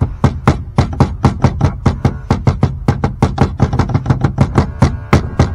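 Ball-peen hammer rapidly tapping a steel key into the keyway of a boat's steering shaft, sharp metal-on-metal taps at about five a second.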